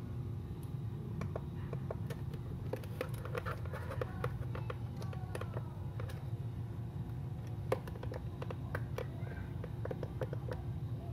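Irregular light clicks and scratches from a digital photo frame being handled and its buttons pressed, coming in two busy spells, over a steady low hum.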